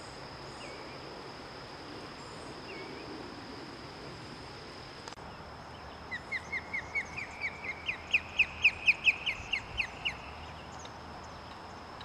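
Osprey calling as it leaves the nest: a rapid series of about twenty short, sharp whistled notes, about five a second. The notes climb a little in pitch and get louder, then fade away.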